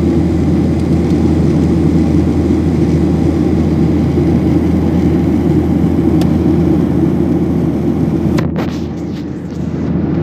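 Steady roar of an airliner's jet engines and airflow heard inside the passenger cabin. The roar dips briefly near the end.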